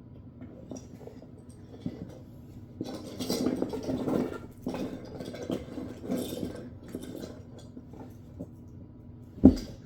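Fidget toys being handled and clattering against each other, with one sharp knock near the end.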